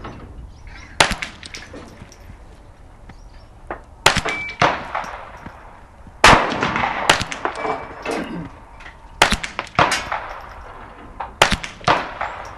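Ruger 10/22 .22 rimfire rifle fitted with a muzzle brake firing about seven sharp shots, irregularly spaced a second or a few seconds apart, some with a short ringing tail.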